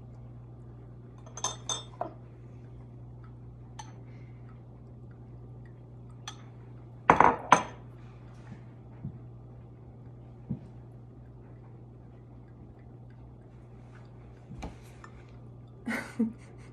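Scattered light clinks of a metal spoon and glassware, a glass measuring cup and a drinking glass, being handled on a countertop, with the loudest pair of clinks about seven seconds in. A steady low hum lies underneath.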